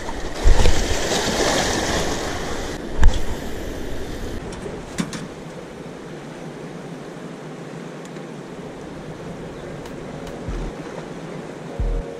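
Steady rush of fast water in a dam's spillway outflow. It is louder and brighter for the first three seconds, with two heavy thumps about half a second in and again near three seconds, then settles to an even rushing noise.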